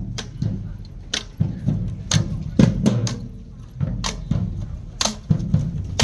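Marching band drumline playing a cadence: bass drums and snares, with sharp cymbal crashes and drum hits.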